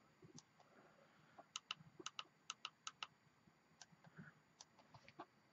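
Faint sharp clicks of an iPhone 5c's side buttons pressed through an Otterbox Symmetry case, a quick run of them, often in close pairs, then a few single clicks near the end. The buttons click crisply with the case on.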